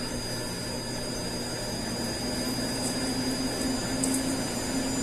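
Tecnopizza TP5090 electric conveyor pizza oven running after being switched on: a steady hum from its fan and freshly lubricated conveyor drive, with a thin high whine, and without the strange noise it had been making.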